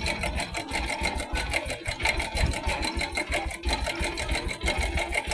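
Bajaj Boxer 100S single-cylinder four-stroke motorcycle engine running with a fast, even mechanical clatter. This is timing chain noise from a worn chain and tensioner.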